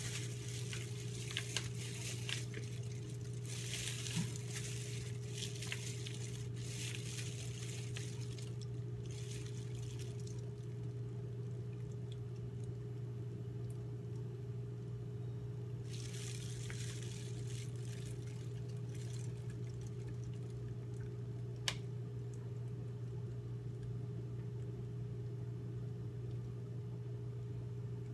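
Plastic bag crinkling and squishing in several bursts as a bag of lip gloss base is handled and squeezed, over a steady low hum, with one sharp click a little past two-thirds of the way through.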